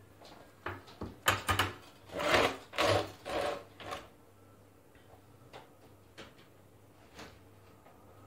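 Hand-handling noise on a worktop: a burst of sharp clicks, clatter and rustling scrapes from about one to four seconds in, as tools and bonsai wire are picked up. A few light ticks follow as the hands work wire onto the thin upper branches of a Chinese elm bonsai.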